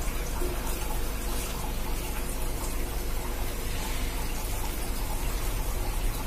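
Wet grated cassava squeezed by hand, its starchy liquid squelching and dribbling out into the bowl in a steady watery noise.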